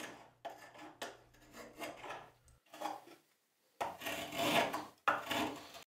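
Flat-bladed spokeshave cutting shavings off the back of a birch spoon: a run of short scraping strokes, lighter at first, then two louder, longer strokes near the end before the sound cuts off suddenly.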